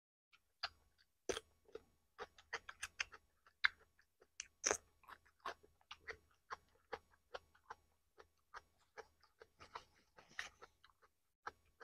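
Close-up eating sounds of a person chewing roast chicken: irregular wet smacks and clicks, several a second. Near the end a paper napkin is handled.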